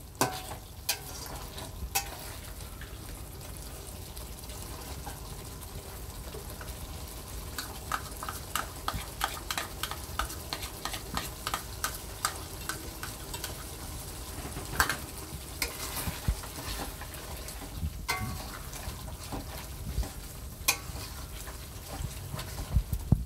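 Steel spoon stirring and scraping thick chicken curry in a stainless-steel kadai, with repeated clicks of the spoon against the pan, a dense run of them midway, over a steady sizzle of the simmering gravy.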